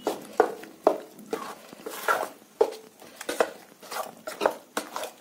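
A metal spoon stirring a thick rice and chana dal batter in a steel bowl, knocking and scraping against the bowl about twice a second.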